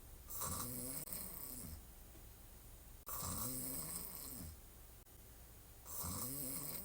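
A woman snoring hard while sleeping on her back: three snores about three seconds apart, each a drawn-out rasp with a pitch that bends up and down.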